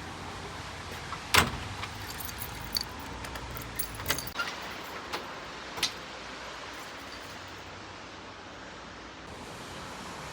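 A sharp knock about a second and a half in, then a string of lighter clicks and taps over a steady hiss of background noise.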